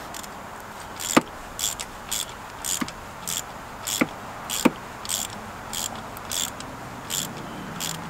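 Ratchet on a 14 mm spark plug socket clicking in short bursts, about two back-strokes a second, as a spark plug is tightened down, with a few sharp metal knocks among them.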